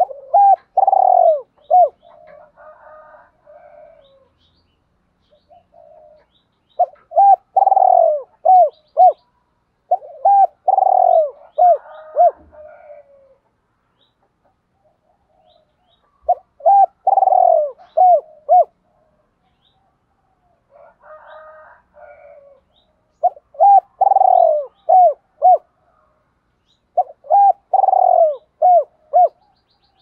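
Spotted dove cooing its calling song: about six phrases a few seconds apart, each a run of short hooting notes, with softer cooing between them.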